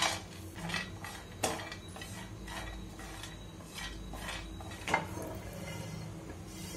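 Cashews dry-roasting in a nonstick frying pan, stirred with a silicone spatula: scattered light clicks and taps of nuts and spatula against the pan, with sharper knocks about a second and a half in and again near five seconds, over a faint steady hum.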